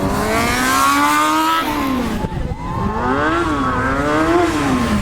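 Sport motorcycle engine revving hard under the throttle: the pitch climbs for about a second and a half, drops away, then rises and falls twice more as the rider works the throttle.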